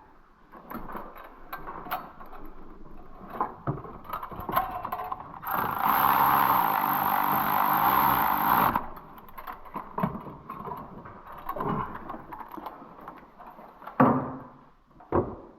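Scattered clicks and knocks of hand tools and parts being worked in an engine bay, with a steady whirring hiss lasting about three seconds in the middle.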